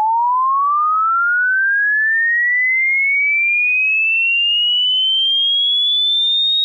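Electronic sine-tone sweep used as an alarm-clock sound: one pure tone rising steadily and smoothly in pitch, climbing from a mid whistle to a shrill high whine.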